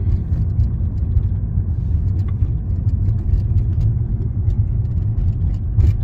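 Steady low rumble of a car's engine and tyres while driving, heard from inside the cabin.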